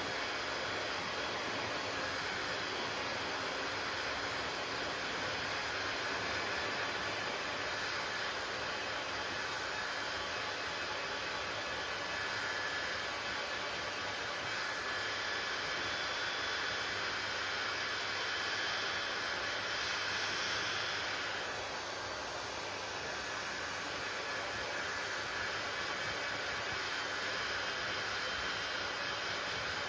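Hair dryer running steadily, with a continuous rushing hiss of air over its motor's whir. About two-thirds of the way through, the sound briefly drops and changes tone before returning.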